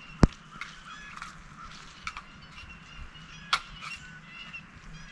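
Poultry calling in the background, with a few sharp clicks while a long-handled magnetic pickup tool is worked over the ground. The loudest click comes just after the start and another about three and a half seconds in.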